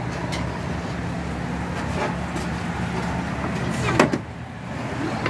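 Steady low engine hum in city street noise, with a few light clicks and one sharp knock about four seconds in.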